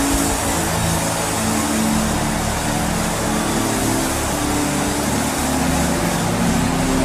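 A congregation praying aloud all at once, many voices merging into a dense, steady din, with low sustained tones underneath.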